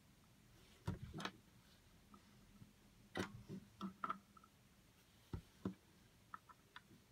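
Lego pieces being handled and set down on a board: scattered light plastic clicks and taps, a few close together, then smaller ticks near the end.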